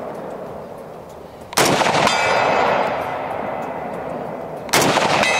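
Two rifle shots from a Browning BAR MK3 DBM semi-automatic rifle in .308, about three seconds apart, each followed by a long rolling echo. A faint metallic ringing follows each shot about half a second later.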